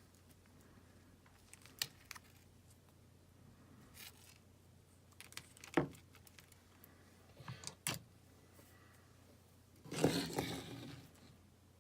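Scattered clicks, taps and scrapes of small electronics parts and tools being handled on a workbench, with a louder rustling, scraping burst near the end.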